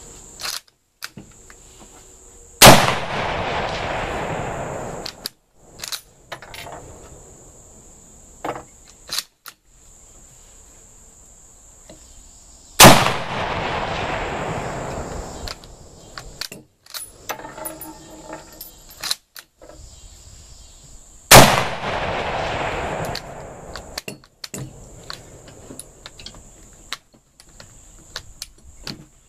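Three rifle shots from a Chinese Type 53 bolt-action carbine in 7.62x54R, about ten and then eight and a half seconds apart, each ringing out for a couple of seconds. Between shots the bolt is worked, with short metallic clacks.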